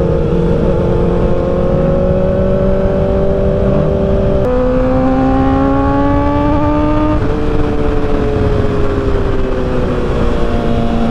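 Kawasaki ZX-4RR's inline-four engine accelerating through the gears: the pitch climbs, drops sharply at an upshift about four and a half seconds in, and climbs again. A little after seven seconds it steps down and then falls slowly as the throttle eases. Steady rushing wind noise on the microphone runs under it.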